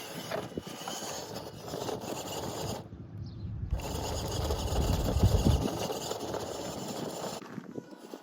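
Small electric RC crawler truck's motor and gearbox whirring as it drives. It runs in two spells, cutting out briefly about three seconds in, with a low rumble that swells around five seconds in.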